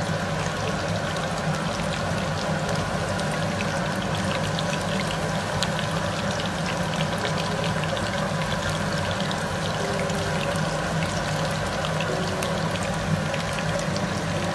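Batter-coated chicken pieces deep-frying in a pan of hot oil: a steady sizzle crackling with many small pops. A steady low hum runs underneath.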